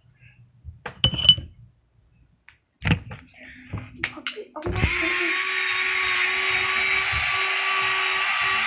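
A few short knocks, then about halfway through an electric pencil sharpener starts and runs steadily, its motor grinding a pencil.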